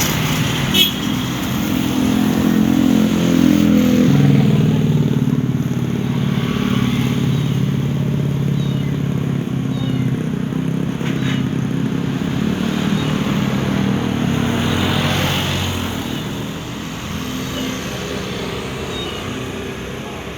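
A motor vehicle engine running, loudest about four seconds in and dying down after about sixteen seconds.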